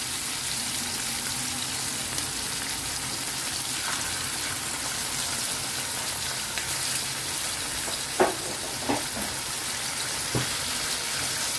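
Fish, onion and tomato frying in oil in a frying pan, a steady sizzling hiss. A few short knocks come in the second half.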